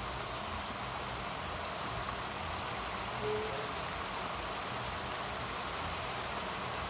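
Heavy rain falling steadily, an even hiss, with a single short low note about three seconds in.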